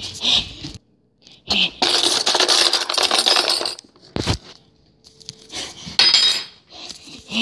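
Rustling and clattering of objects being handled: a long rustle with many small clicks about two seconds in, a single thump just after four seconds, and a short clink near the end.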